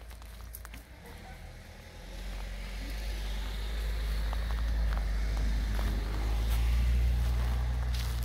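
Low engine rumble of a motor vehicle close by, coming in about two seconds in and growing louder toward the end.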